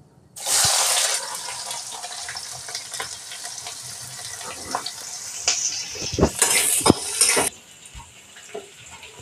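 Sliced onions dropped into hot oil in a steel kadhai, a loud sizzle that starts suddenly and slowly eases. About five and a half seconds in, a metal spatula scrapes and knocks against the pan for a couple of seconds as they are stirred.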